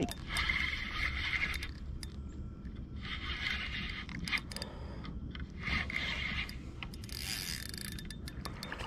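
Spinning reel being cranked, its gears and bail whirring as line winds in, in several runs of about a second with short pauses between them.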